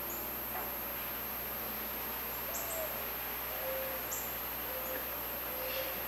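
Forest ambience: a steady hiss with scattered very short, high bird chips and a few soft, low, short whistled notes.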